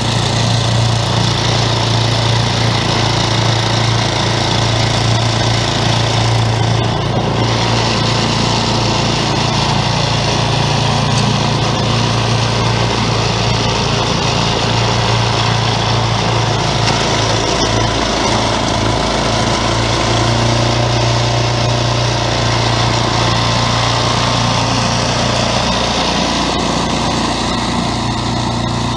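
Craftsman 11/30 snowblower's engine running steadily while the auger throws snow, driven by a newly replaced auger belt.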